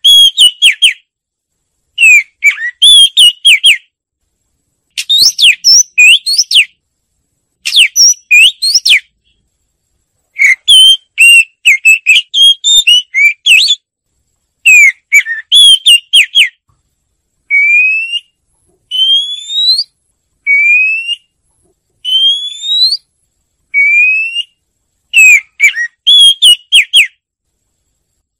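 Oriental magpie-robin singing: loud, clear whistled phrases of quick sweeping notes, each a second or two long with short pauses between. In the middle comes a run of five single rising slurred whistles before the fuller phrases return.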